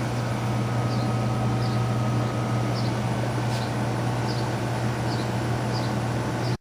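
Steady low hum with a faint, short high chirp repeating irregularly about once a second.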